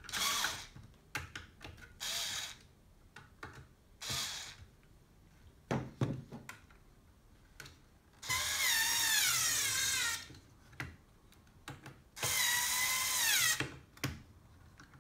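Small electric screwdriver or drill run in short bursts. It then runs for two longer stretches of about two seconds each, its whine wavering in pitch under load, as it slackens over-tightened M3 bolts on a stepper motor mount.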